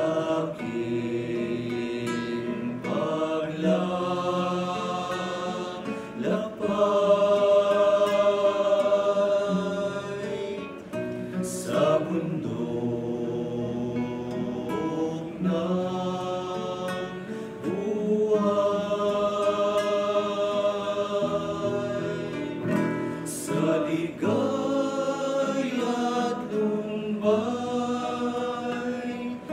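A small group of men singing a slow song together in long held notes, accompanied by a strummed acoustic guitar.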